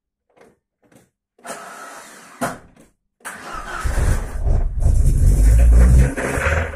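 Car engine being started: a burst of starter cranking about a second and a half in, then the engine catches a little after three seconds and runs loudly with the revs raised. The engine has a worn bearing shell, the knock it makes being the point of the recording.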